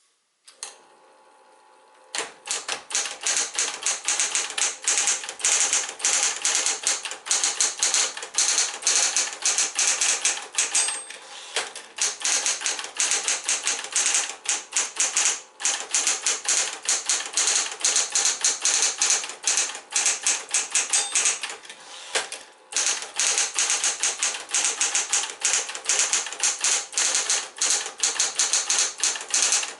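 Smith-Corona Electra 120 electric portable typewriter: its motor hums, then from about two seconds in come rapid, continuous keystrokes, with a few brief pauses.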